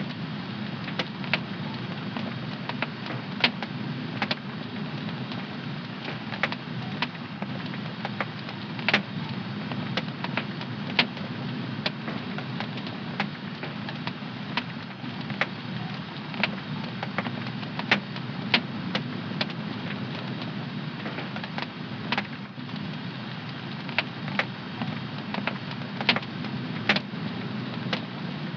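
Fire in a home fireplace crackling: irregular sharp pops, a few of them louder, over a steady low rush of the burning flames.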